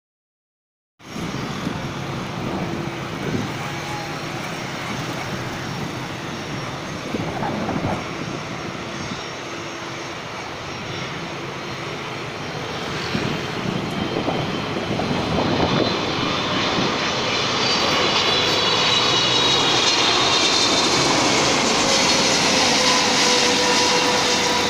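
Boeing 777-300ER's GE90-115B turbofans on low final approach, the jet noise building through the second half as the airliner comes closer. It carries a high engine whine and a tone that falls in pitch near the end as the aircraft passes.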